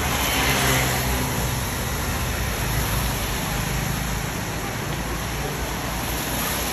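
Large outdoor crowd applauding and calling out, a little louder in the first second.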